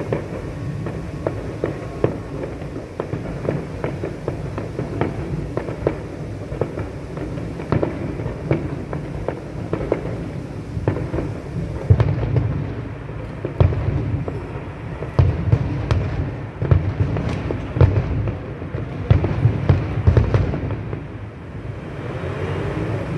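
Fireworks display going off: a steady run of pops and cracks, then a dense volley of heavy booms from about halfway through until near the end.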